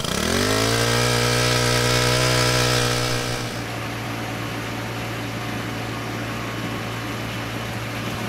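Honda WX10 four-stroke portable water pump's small engine starting, its pitch rising quickly to a steady high-speed run. About three seconds in the sound becomes quieter and duller, the engine still running steadily at the same speed.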